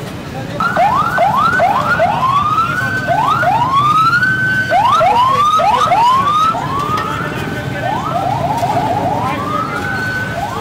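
Electronic siren giving repeated rising wails, each sweeping up in pitch and some held briefly at the top, coming at uneven intervals and quickening into short rapid yelps about eight seconds in, over a steady hum of street noise.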